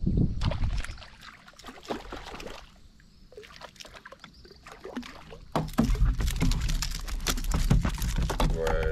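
Handling noise on a fishing kayak: a low rumble with many small clicks and knocks from the spinning rod, reel and hull. It drops quiet about a second in and comes back louder a little past halfway, with rapid clicking.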